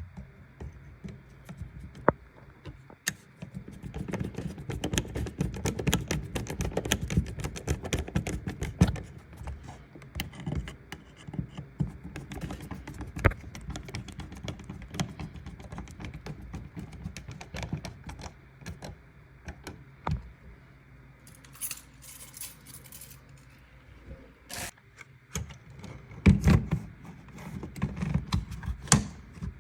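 Irregular clicks, knocks and scraping from handling a hardwired smoke detector's plastic housing, mounting and wiring during installation, with louder thumps near the end.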